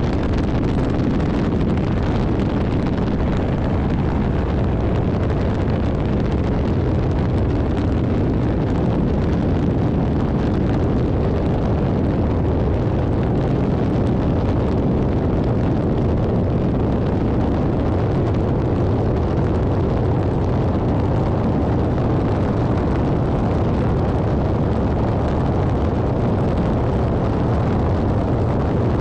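Airbus AS350 B3 Esquilo helicopter in flight: steady noise of its single turboshaft engine and rotors.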